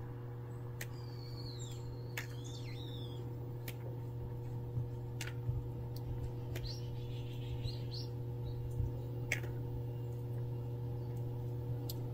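Small birds chirping a few short, sweeping calls, once about a second in and again past the middle, over a steady low hum with scattered light clicks.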